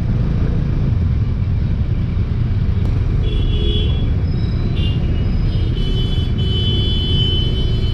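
Steady low rumble of motorbike and scooter engines idling in stopped, crowded traffic. A vehicle horn sounds briefly about three seconds in and again for about two seconds near the end.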